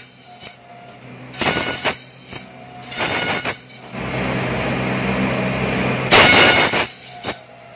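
Bamboo satay-skewer slicer with two planers running, its motor humming steadily while bamboo strips are fed through its rollers and cutters. Each pass is a burst of shaving noise: two short ones, a long even pass in the middle, and the loudest burst just after six seconds in.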